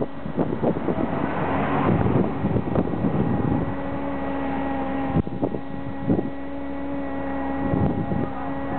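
Wind buffeting the microphone in gusts, over a steady motor hum.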